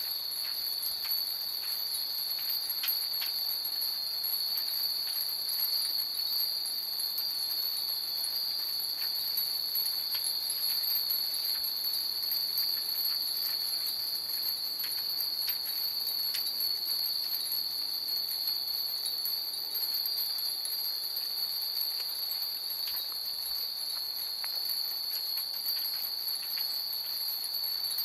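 Many Japanese fūrin wind chimes tinkling in scattered, irregular light strikes, over a steady high insect trill that runs without a break.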